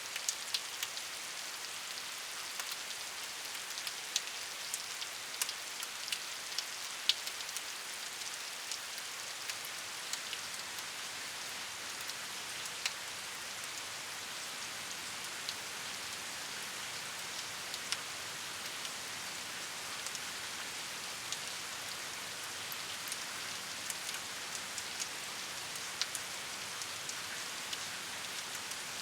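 Steady rain with a constant high hiss and close, individual drops ticking on a surface, the drops more frequent in the first half.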